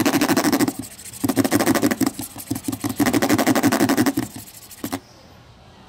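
A serrated metal tool scraped hard across the ribbed hard shell of a suitcase, in three rapid rasping passes for a scratch-resistance test, with a couple of light knocks before it stops about five seconds in.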